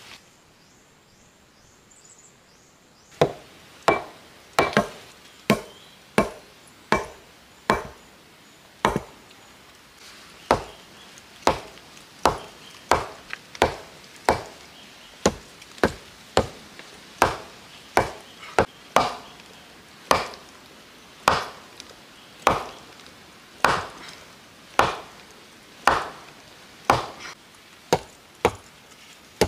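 Hatchet blows on wooden logs: a steady series of sharp knocks, about one to two a second, starting about three seconds in after a quiet opening.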